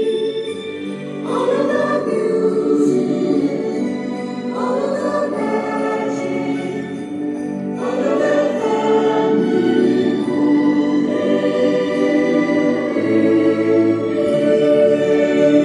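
Background music: a choir singing slow, held chords, with new sung phrases swelling in three times in the first half.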